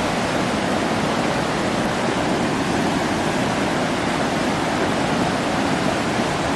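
A flooded mountain river running down a road, a steady loud rush of water.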